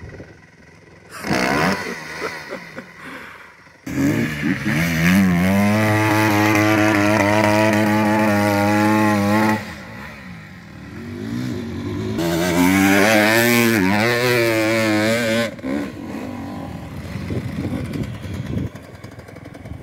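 Off-road vehicle engine revving hard under load: it climbs to high revs about four seconds in and holds them for some five seconds, drops off briefly, then revs hard again with the pitch wavering before settling to a lower, rougher running sound near the end.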